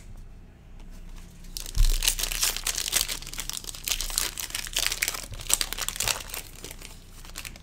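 Hands tearing open and crinkling the foil wrapper of a Panini basketball card pack: a dense run of crackling that starts about two seconds in and lasts until near the end.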